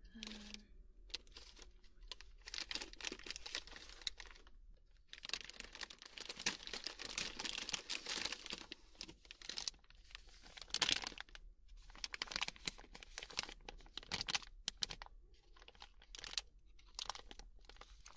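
Plastic sweet packet, a Haribo gummy bag, crinkling and crackling irregularly as it is handled close to the microphone, with a few brief pauses.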